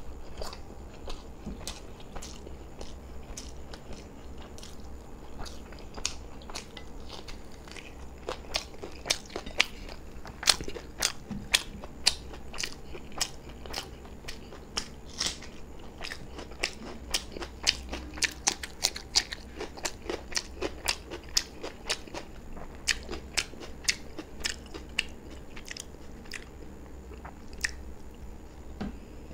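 A person chewing a mouthful of beef biryani eaten by hand, heard close up: a run of sharp wet mouth clicks, thickest in the middle of the stretch and sparser near the end, over a steady low hum.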